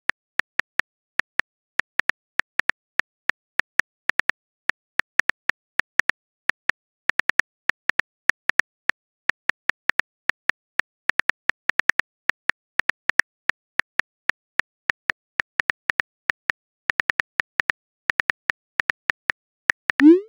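Phone keyboard key clicks, a quick irregular stream of short ticks as a message is typed out letter by letter. Near the end comes a short rising sweep.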